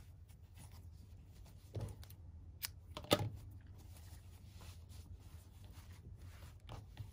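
Faint rustle of yarn and crocheted fabric being handled as a yarn tail is worked in with a crochet hook. A soft knock comes about two seconds in and a sharper click about three seconds in.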